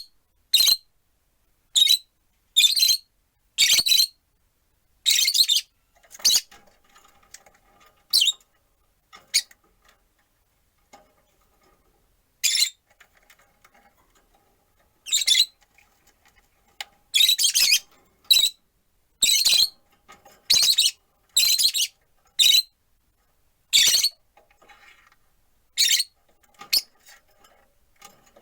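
Rosy-faced (peach-faced) lovebirds giving short, shrill, high-pitched calls at irregular intervals, with a quieter spell of a few seconds near the middle.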